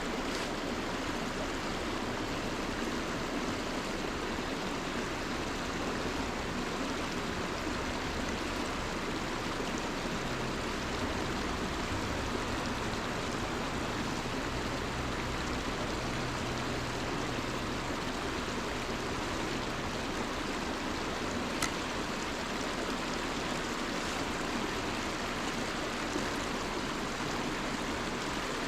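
River water running steadily over a riffle, an even rushing hiss, with one faint click about three-quarters of the way through.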